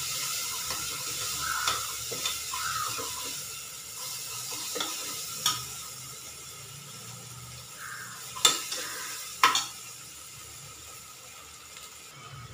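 Onions and ginger-garlic paste sizzling in oil in a pan while a spoon stirs them, with a few sharp clicks of the spoon against the pan; the paste is being fried to cook off its raw smell. The sizzle fades somewhat in the second half.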